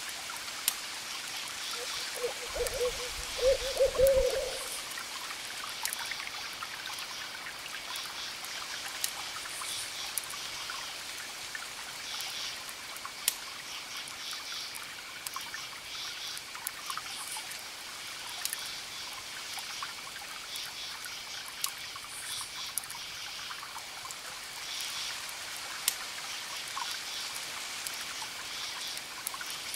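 An owl hooting, a low call in two parts about three seconds in, over a crackling fire with scattered sharp pops and a steady hiss.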